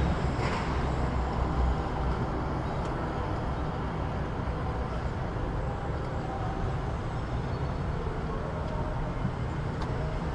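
City traffic ambience: a steady wash of road noise, with a heavier low rumble in the first couple of seconds that then settles to an even hum.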